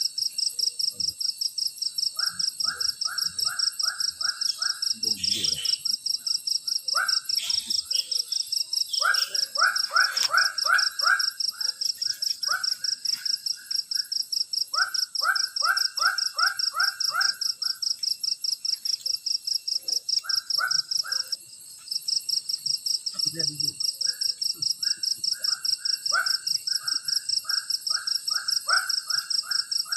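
Tropical forest insect chorus: a loud, rapidly pulsing high-pitched buzz with steady whining tones above it, which stops briefly about two-thirds of the way through. Over it, another animal repeats a call in short runs of quick notes, several times.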